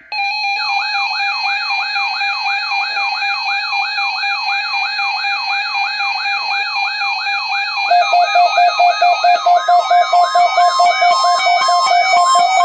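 Several NOAA weather alert radios sounding their alarms for a Required Weekly Test: a siren-like wail sweeping down about three times a second over a steady tone, joined about eight seconds in by a louder pulsing beep.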